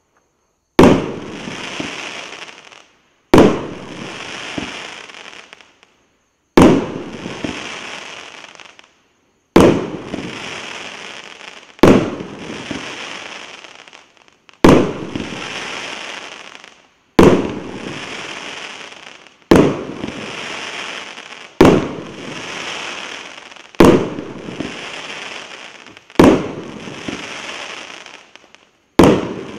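A 1.25-inch, 49-shot fireworks cake (Golden Peony) firing single shots about every two and a half seconds. Each shot is a sharp bang followed by about two seconds of hiss that dies away, about a dozen in all.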